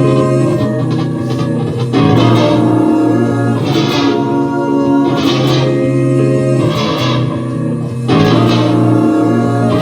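Instrumental music: electric guitar playing over sustained chords and bass, with a steady beat. The chords change twice.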